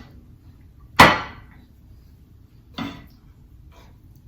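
Two clanks of a utensil against cookware as cooked chicken pieces are lifted from the pan: a sharp, ringing one about a second in and a softer one near three seconds.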